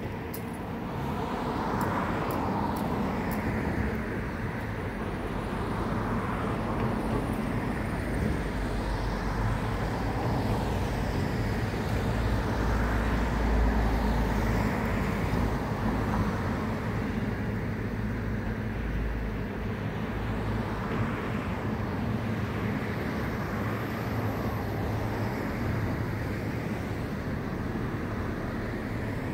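Road traffic going past: a steady rumble that swells to its loudest about halfway through, with passing cars coming and going every few seconds. Insects in the grass chirp faintly underneath.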